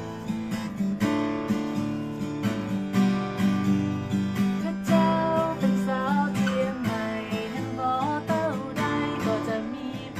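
Deviser acoustic guitar strummed in steady chords, with a woman's voice singing a melody over it from about halfway through.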